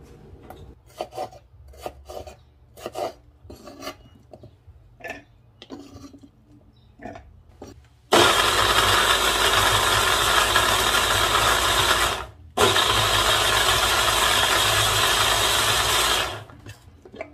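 Electric food processor with its motor on a chopper bowl, running in two bursts of about four seconds with a brief pause between, grinding fresh tomato pieces into a puree. Before it starts there are light knocks and clicks.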